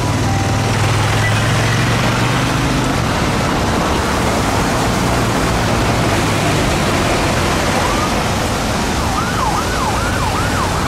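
Heavy city traffic noise, with a large vehicle's engine running close by for the first three seconds. About eight seconds in, a police car siren comes up through the traffic and goes into a fast up-and-down yelp near the end.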